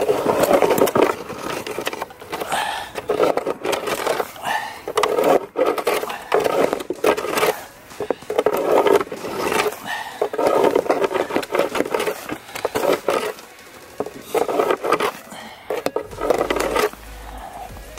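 Repeated scraping strokes on a wooden beehive bottom board, about one a second with clicks and knocks among them, as dead bees are raked out of the hive entrance.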